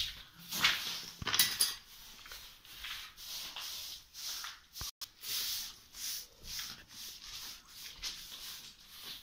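Irregular scuffing and rubbing noises, a string of short hissy bursts that are loudest in the first two seconds, from a handheld phone being moved around and handled.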